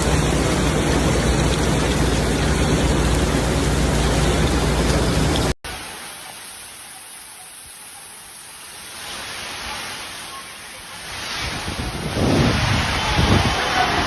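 Heavy rain pouring down in a loud, steady hiss. About five and a half seconds in, it cuts off suddenly to a much quieter hiss of rain and water, which grows louder again near the end.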